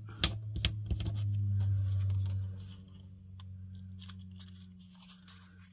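Bone folder scraping and pressing along the folds of kraft cardstock, with sharp clicks and scratches of the card in the first second or so. A low hum swells and then fades about halfway through.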